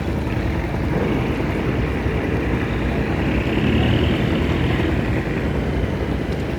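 Fishing boat's engine running steadily, with a low, even rumble.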